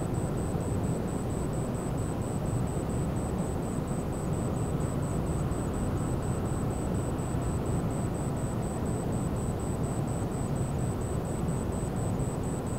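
Steady low rumble from the engines of the car ferry Ferry Rokko as it leaves port. A faint high-pitched beep pulses evenly about four times a second.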